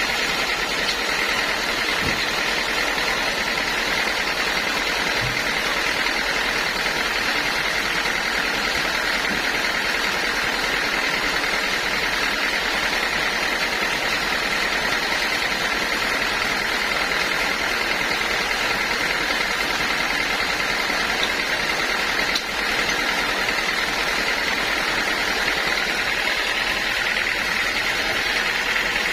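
Band sawmill running steadily with an even, continuous saw noise, as it does while sawing a teak log.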